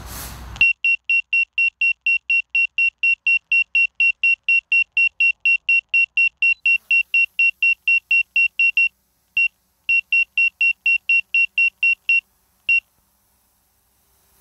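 Rapid electronic alert beeping, one high steady tone repeated about four times a second, from the drone's control system while the Autel Evo I's motors spin up and it takes off. The beeping starts after a short burst of wind noise, breaks off briefly about two-thirds of the way through, resumes, and ends with a single last beep.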